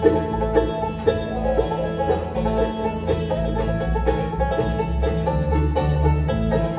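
Bluegrass band playing an instrumental break with no singing: banjo, fiddle, mandolin, acoustic guitar and upright bass together, the bass steady underneath.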